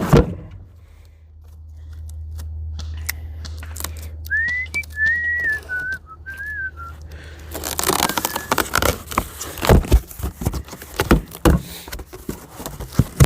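A person whistling a short wavering tune over a steady low hum, followed about halfway through by a run of sharp clicks and rattling handling noises.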